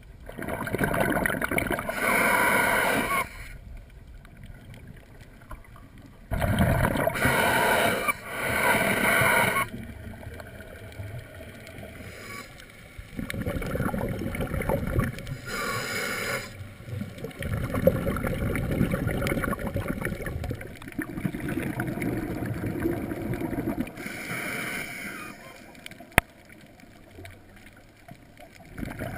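Scuba diver's exhaled bubbles from a regulator, rushing and gurgling in bursts of a second or more, a few seconds apart, heard through an underwater camera housing, with quieter low water noise between breaths.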